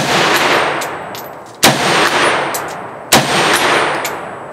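M+M M10X Elite AK-pattern semi-automatic rifle in 7.62x39mm firing three shots about a second and a half apart, each followed by a long echo dying away.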